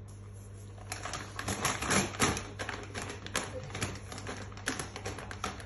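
A dog rummaging with its head in a paper bag of dry kibble: crackling paper and rattling kibble in a rapid, irregular clatter of clicks that starts about a second in.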